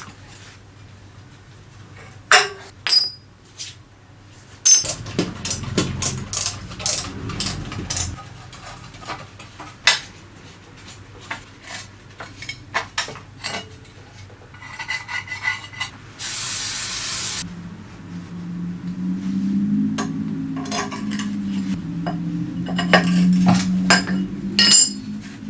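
Metal parts and hand tools clinking and knocking, a series of separate sharp strikes and rattles. About two thirds of the way through there is a short hiss lasting just over a second, and near the end a low wavering hum joins the knocks.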